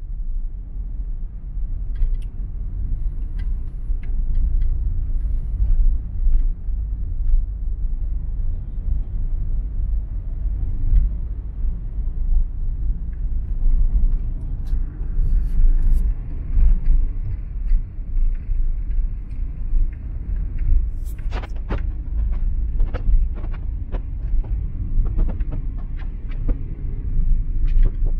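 Steady low road rumble of a car driving, with scattered light ticks that come thickest in the last few seconds.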